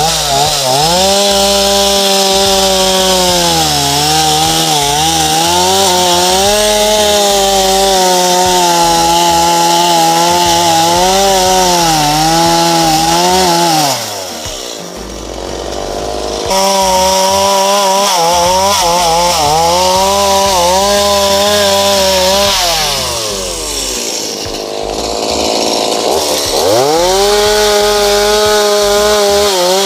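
Two-stroke chainsaw run at high revs while cutting, its pitch sagging and recovering repeatedly as it works through the wood. It falls off twice, about halfway through and again near three quarters, and revs back up each time.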